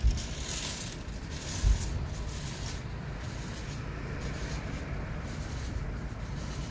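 Steady low outdoor rumble with two short low thumps, one at the very start and one nearly two seconds in.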